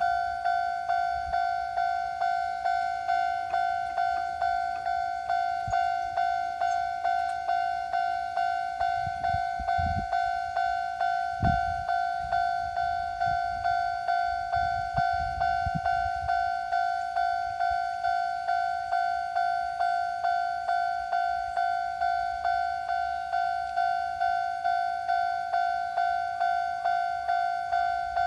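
Japanese level-crossing alarm, the old standard electronic type, ringing a steady repeating ding on one pitch. Low rumbling comes in partway through, roughly in the middle.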